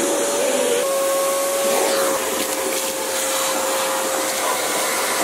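Wet/dry shop vacuum running steadily, its hose sucking rat droppings and nest debris out of a car's engine bay. A whistling tone runs over the motor's rush; it wavers for about the first second, then holds.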